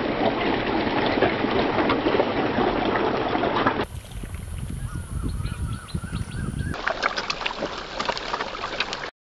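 Dense splashing and sloshing of a mass of catfish thrashing at the water surface as they feed. After about four seconds it drops to a quieter stretch with faint bird calls, then sharp wet slaps and splashes of catfish writhing in shallow water. The sound cuts off suddenly near the end.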